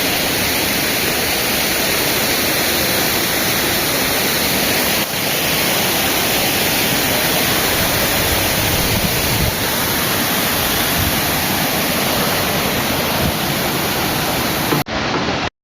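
Waterfall, its falling water making a loud, steady rush. It cuts off abruptly near the end.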